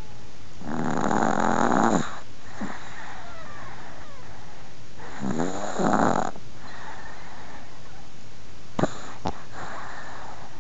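An elderly Chihuahua snoring in its sleep: two long, loud snores about four seconds apart, with softer breaths between them. There are two short clicks near the end.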